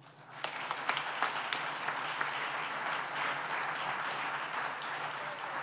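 Audience applauding, many hands clapping together. It starts about half a second in and holds steady.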